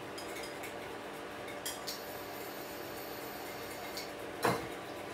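A wire whisk beating a dressing in a ceramic bowl, its wires clicking and scraping against the bowl. A few louder knocks come through, the loudest near the end.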